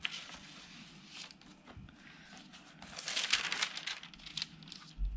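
Baking paper and book pages rustling and crinkling as they are handled and smoothed by hand, louder about three seconds in, with a soft thump near the end.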